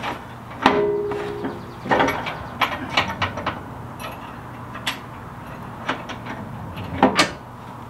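Metal clinks, clicks and knocks of bolt hardware and tools being worked into a steel truck frame and winch mounting plate, with a brief ringing clang about a second in, a quick run of clicks after it, and a sharp knock near the end.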